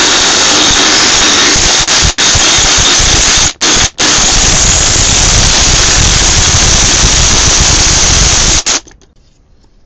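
Cordless drill running at full speed, its bit boring into the seized steel bearing-carrier nut of an outboard gear case to split it free. A loud, even grinding noise that stops briefly twice in the first four seconds and cuts off sharply near the end.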